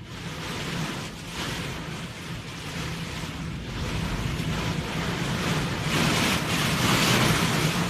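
Storm wind and heavy, wind-driven rain, rising and falling in gusts and loudest near the end, with wind buffeting the microphone.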